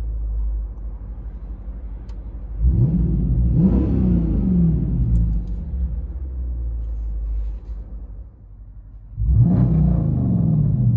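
Dodge Charger R/T's 5.7-litre HEMI V8 with a Borla ATAK cat-back exhaust, heard from inside the cabin: a low idle, one rev about three seconds in that climbs and falls back to idle. Near the end it cuts to the same engine straight-piped, revving sharply.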